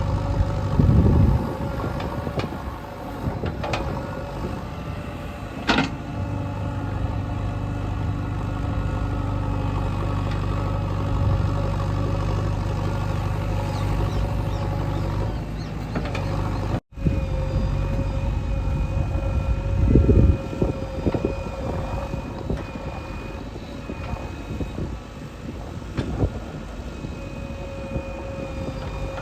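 JCB 3DX backhoe loader's diesel engine running steadily under working load, with heavy low thuds near the start and about two-thirds of the way through as it works the soil. The sound drops out for an instant partway through.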